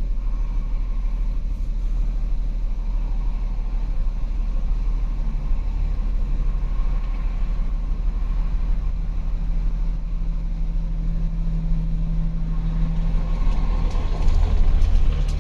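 2008 Volkswagen Passat's 3.6 litre V6 idling with a steady low rumble, running rough and misfiring with fuel rail pressure too low. It grows briefly louder near the end.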